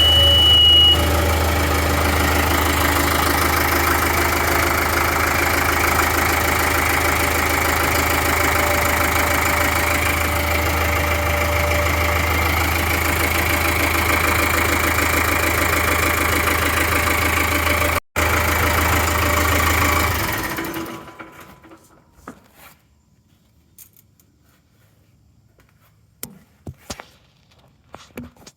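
John Deere 5425's four-cylinder turbo diesel idling steadily on fresh oil after an oil change, with a short high beep near the start. About twenty seconds in the engine is shut off and winds down, leaving only faint clicks.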